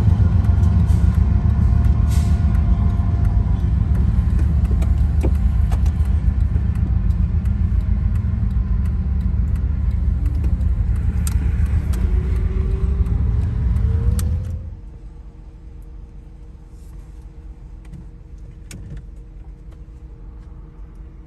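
Heavy low rumble of car cabin and engine noise, heard from inside a car waiting at a grade crossing. It cuts off abruptly after about fourteen and a half seconds. A much quieter steady hum with two faint low tones follows, from a lashup of Kansas City Southern and Union Pacific diesel locomotives.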